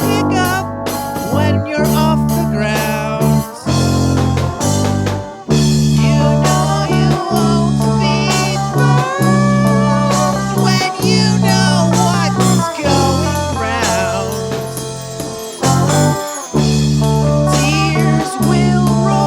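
Blues-rock band music led by electric guitar, its notes bent and wavering, over sustained low bass notes that change every second or two.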